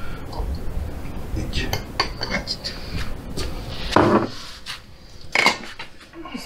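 Glass jars and kitchen utensils knocking and clinking as they are handled, a few sharp clinks, with the loudest about four seconds in and another about five and a half seconds in.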